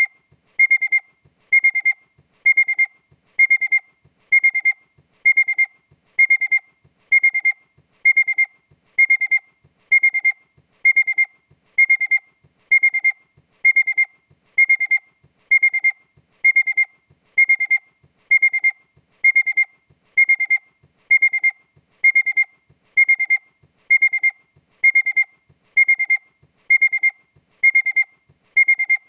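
Honda car's warning beeper sounding a steady run of identical short, high beeps, about three every two seconds, without a break.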